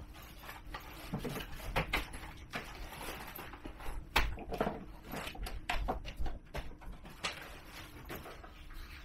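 Scattered clicks, taps and rustling as gear, packets and small bottles are handled and set down on wooden tables, with a few sharper knocks about four seconds in and around five to seven seconds in.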